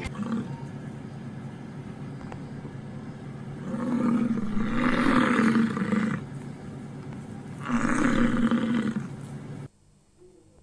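American bison bellowing: two long, low calls, the first starting about four seconds in and lasting over two seconds, the second shorter. A steady background noise runs under them and cuts off suddenly near the end.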